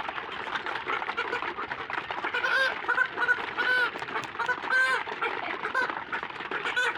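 Chickens calling: a run of short, arched squawks, several in a row through the middle, over the steady background noise of the flock.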